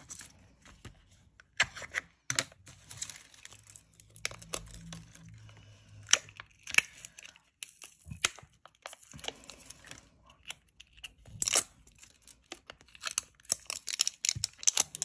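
Masking tape being peeled from the roll and torn off, with paper crinkling and irregular crackles and taps as the strips are handled and stuck down.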